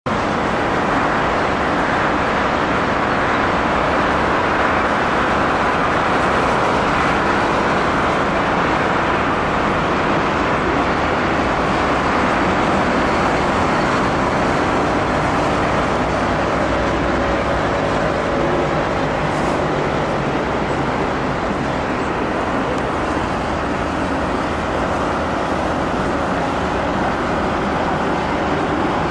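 Steady road-traffic and city noise, an even rushing hum that neither swells nor fades.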